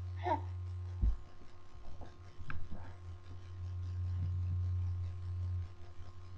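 A steady low hum, with a brief falling squeal near the start and a low thump about a second in.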